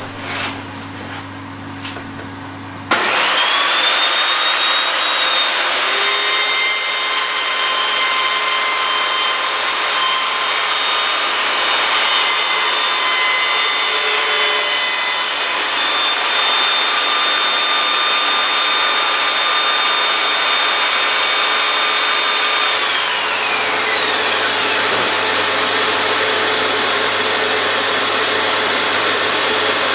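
Evolution Rage 5S table saw switched on about three seconds in, its motor whine rising quickly to speed over a steady rush of air, then ripping a board for about ten seconds. Near the end it is switched off and its whine falls away, while the steady rush of air keeps going.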